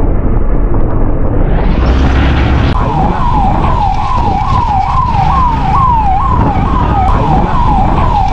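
Siren sounding a fast, repeating falling wail, about two sweeps a second. It starts about three seconds in and stops abruptly at the end, over a steady rumble of wind and road noise that is muffled at first.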